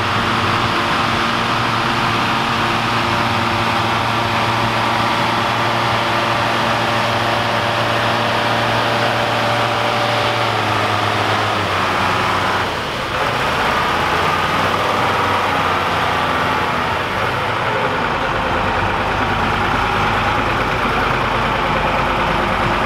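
Massey Ferguson 1505's Caterpillar 3208 V8 diesel running steadily under load as the tractor drags a weight-transfer pulling sled, the engine note holding level.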